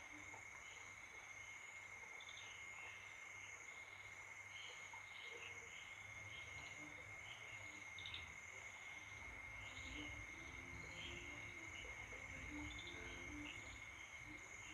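Faint night insects, crickets chirping in short irregular pulses over a steady high-pitched drone.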